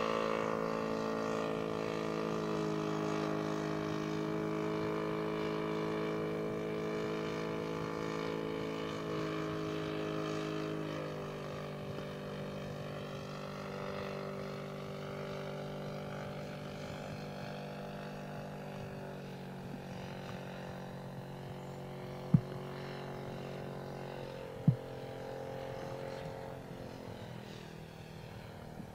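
Quarter-scale SE5a model biplane's engine droning in flight, its note dropping a few times as the sound slowly fades. Two sharp clicks, louder than the engine, come a couple of seconds apart in the last third.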